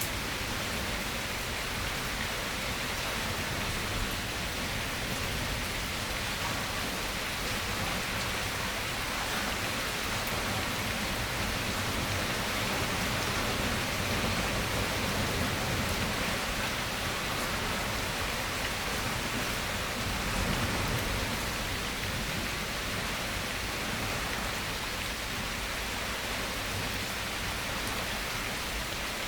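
Steady rain falling, an even, unbroken hiss with no thunder or single drops standing out.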